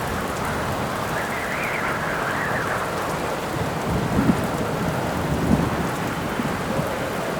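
Storm ambience: steady rain with wind howling in a wavering tone during the first few seconds, and low rumbles of thunder swelling about four and five and a half seconds in.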